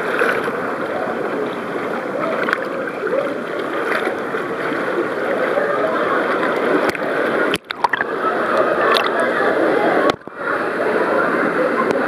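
Fast-flowing, churning water of a wild-water river ride, heard from right at the water surface, with gurgling and splashing. The sound briefly cuts out twice, at about two-thirds and five-sixths of the way through.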